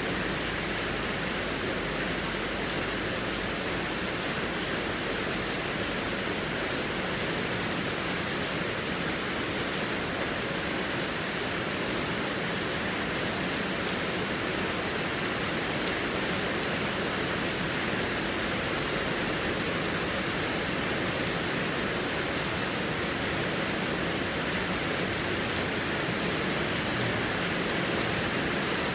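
Heavy rain falling steadily: an even, unbroken hiss with faint scattered drop ticks.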